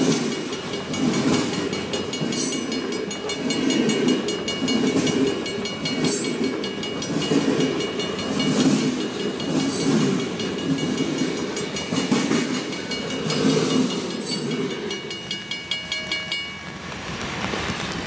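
Ontario Northland train rolling past: a rhythmic clatter of wheels over rail joints, about once a second, with a thin steady high squeal over it and occasional sharp clanks, dying away near the end.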